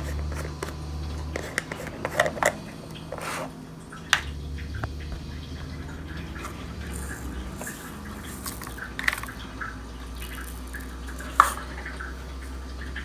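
Plastic fish-food tub being opened and small betta pellets shaken out into its cap, a scatter of light clicks and rattles. A low steady hum runs underneath.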